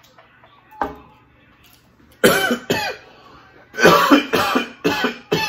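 A man coughing hard into his fist, a fit of loud coughs in two bouts starting about two seconds in, just after drinking. A single knock about a second in as the plastic cup is set down on the table.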